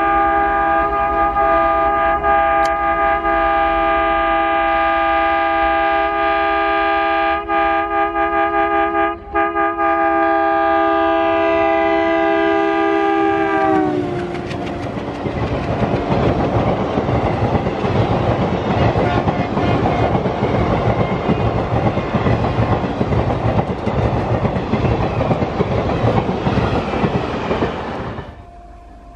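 WDM3A ALCO diesel locomotive passing at high speed with its horn held for about fourteen seconds, the horn's pitch dropping as the locomotive goes by. The coaches then rush past with a loud rumble and clatter of wheels on rail, which cuts off near the end.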